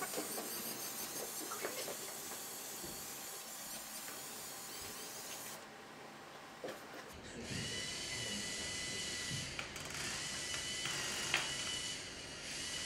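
LEGO Mindstorms robot's electric motors and plastic gears whirring as it drives and pushes balls across a wooden table, with light rattles and ticks. About seven seconds in, a steady high whine sets in over the whirr.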